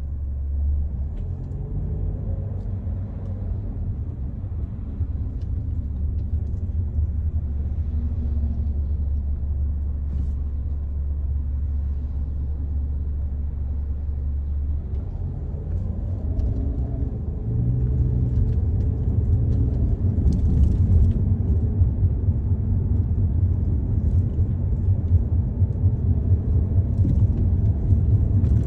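Car engine and road rumble heard from inside the moving car, a steady low drone that grows louder about two-thirds of the way through as the car speeds up, with a few faint ticks above it.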